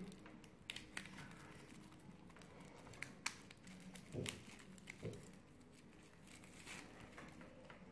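Faint crinkling and scattered small clicks of plastic shrink-wrap being peeled and torn off a deck of game cards.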